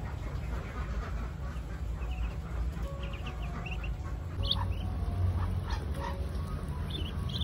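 Ducklings peeping: a scatter of short, high cheeps, busiest about halfway through and near the end, over a steady low rumble.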